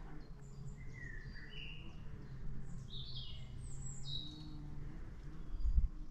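Woodland birds singing, a string of short whistled notes and falling chirps, over wind buffeting the microphone, which gets louder near the end.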